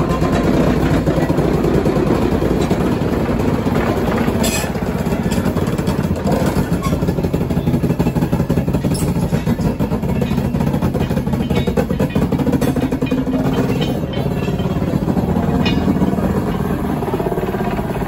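Diesel shunting locomotive's engine running steadily with a fast, throbbing beat as it hauls a brake van slowly past. A few sharp clicks come through along the way.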